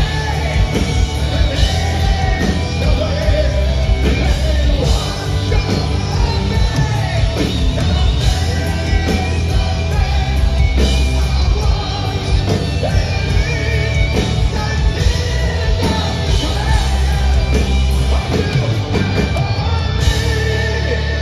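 A heavy rock band playing live through a hall PA: distorted electric guitars, bass, drums and a sung vocal line. The heavy low end drops away near the end.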